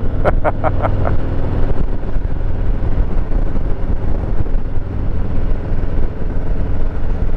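Harley-Davidson Heritage Classic 114's Milwaukee-Eight 114 V-twin engine running as the motorcycle rides along, heard through heavy wind rush on the camera microphone.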